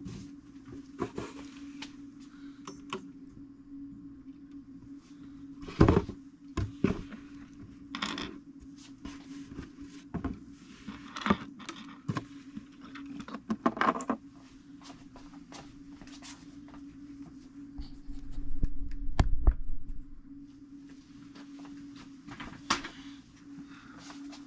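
Scattered small clicks, taps and knocks of hands working on a fusee clock movement and its parts on a workbench, one sharper knock about six seconds in and a low rumble of handling near the two-thirds mark, over a steady low hum.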